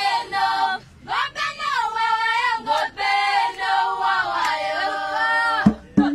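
Group of women singing an Owambo dance song together without instruments, their voices rising and falling with a short break about a second in. Just before the end, sharp percussion beats start at a steady fast pulse.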